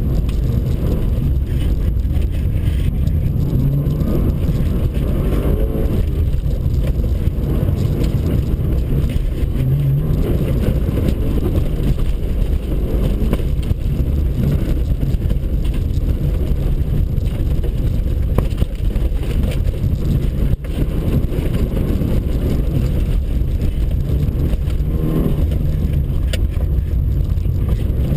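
Mitsubishi Lancer Evo 5's turbocharged four-cylinder engine running hard, heard from inside the cabin, its pitch rising and falling with the throttle and gear changes, over steady road and tyre noise.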